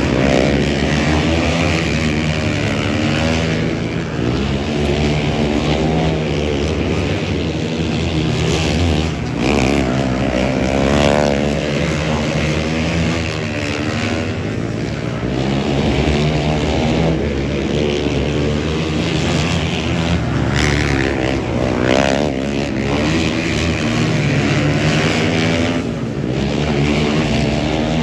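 Several engines running at once, their pitch rising and falling as they rev up and down.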